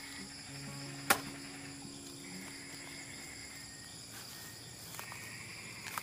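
A steady chorus of crickets and other insects, with one sharp snap about a second in as a banana leaf is broken off the plant, and a few lighter clicks and rustles of the leaf near the end.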